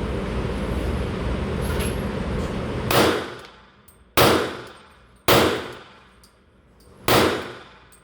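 Glock 23 Gen 5 pistol firing .40 S&W rounds in slow fire: four shots, the first about three seconds in and the rest a second or two apart, each with a ringing echo that trails off. A steady background noise runs before the first shot and stops when it goes off.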